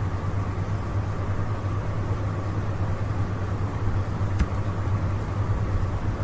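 Steady low hum with hiss from the recording microphone's background noise, and a single sharp click about four seconds in.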